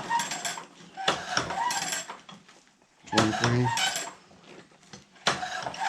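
Metal clinking and clattering of a bandsaw-mill blade being moved tooth by tooth through a Woodland Mills tooth setter while each tooth's set is checked, in two bursts, one about a second in and one near the end.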